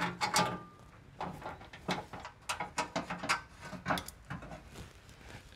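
Irregular clicks, taps and knocks as the under-engine access plate over the oil filter is unbolted by hand and taken down.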